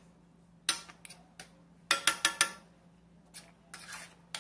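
Metal spoon and wooden spoon clinking and knocking against a stainless steel pan of spaghetti sauce. The strikes are scattered, with a loud quick run of four about two seconds in, over a faint steady hum.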